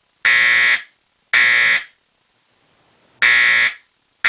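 Simplex 4050 fire alarm horn, run on 6 volts AC, sounding the code 3 temporal pattern. It gives short blasts of about half a second: two, a pause of about a second and a half at the end of the round, then the next round starting with another blast, and a fourth just beginning at the very end.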